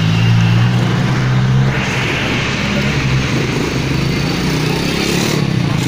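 Motor vehicle engine running steadily close by, a low even hum, over general street traffic noise.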